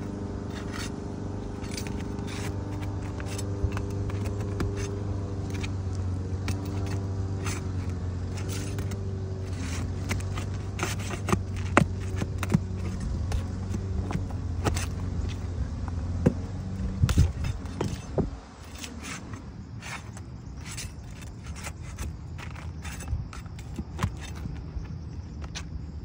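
Asphalt roofing shingles being pried up and unsealed with a metal bar, with repeated scraping and sharp clicks as nails are worked loose. A steady engine hum runs underneath and stops about two-thirds of the way through.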